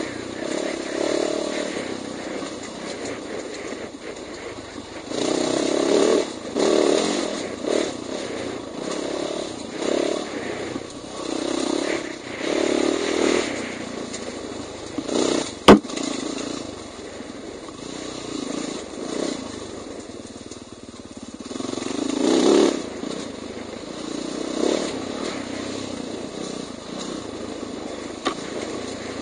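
Dirt bike engine revving in short surges and dropping back as the bike works over a rocky trail, with one sharp knock about halfway through.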